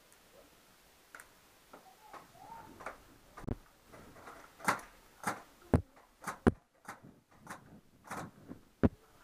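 Paintball markers firing single shots: a run of sharp pops, sparse at first, then louder and about two a second through the second half.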